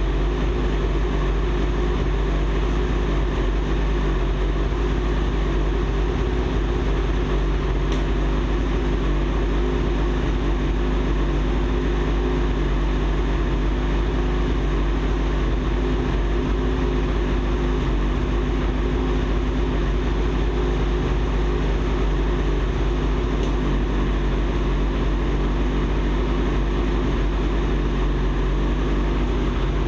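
2019 Ski-Doo Summit snowmobile's two-stroke engine idling steadily, with no revving.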